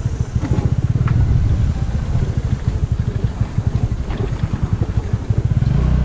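Motor scooter running along a rough dirt track: a low, uneven rumble with a few light rattles and knocks.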